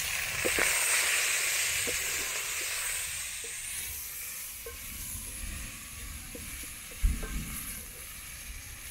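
Chopped onions sizzling in an aluminium pot as they are stirred with a wooden cooking stick, which knocks lightly against the pot every second or so. The sizzle is loudest in the first few seconds and then dies down, and a louder thump comes about seven seconds in.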